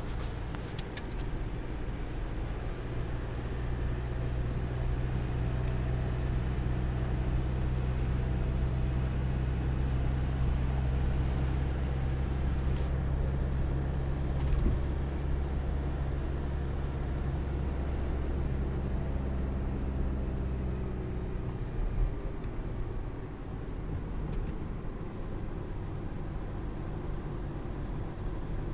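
Car engine and road noise heard from inside the cabin while driving, a steady low drone that eases off about three-quarters of the way through. A short thump near the end.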